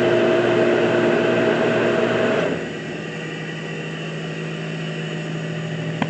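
Dairy milk pump's electric motor running with a steady hum as it pumps milk up to the bulk tank. About two and a half seconds in, the sound drops and changes to a quieter, lower steady hum.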